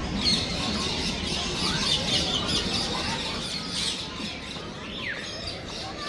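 Many small birds chirping on and off, with one quick downward-sliding call about five seconds in, over a steady low background noise.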